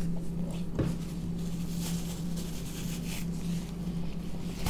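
A person chewing a soft tortilla-wrapped snack with the mouth closed: quiet wet mouth sounds with a small click about a second in, over a steady low hum.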